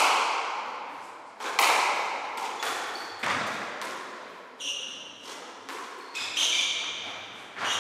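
A squash rally: racket strikes and the ball smacking off the court walls, a sharp hit about every second and a half, each echoing in the enclosed court. Short high shoe squeaks on the wooden floor come midway and again near the end.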